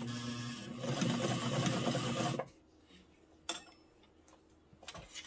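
Sewing machine running as it stitches, picking up speed about a second in and stopping after about two and a half seconds. A short click follows a second later.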